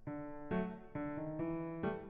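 Background music played on a keyboard, with melodic notes changing about twice a second.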